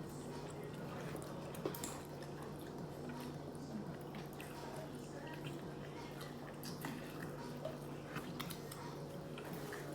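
Quiet, wet eating sounds of a seafood boil: scattered small clicks and squishes from crab and crawfish shells being picked apart, and chewing, over a steady low hum.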